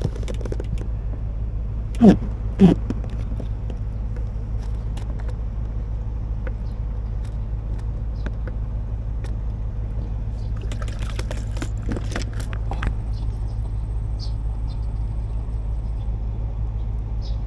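A steady low engine rumble, with scattered light clicks and taps from handling hooks and bait.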